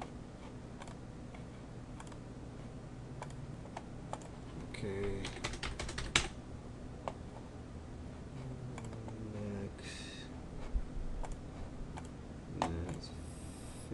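Computer keyboard keystrokes and mouse clicks, scattered single clicks with a quick run of keystrokes about five to six seconds in, over a steady low hum.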